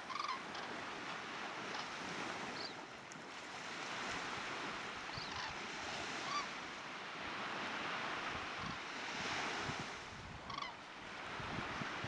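Surf washing on the beach, with wind rushing on the microphone. Over it come a handful of short, scattered calls from a high-flying flock of migrating birds.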